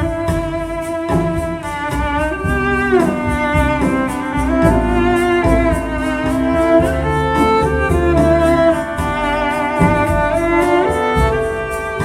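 Recorded orchestral strings (violins, cellos and basses) playing an instrumental passage of a slow ballad, with vibrato and several sliding phrases, heard through hi-fi loudspeakers in a room.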